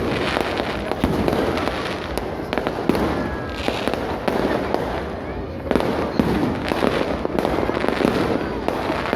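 Fireworks going off in quick succession, many overlapping bangs and pops, with crowd voices underneath.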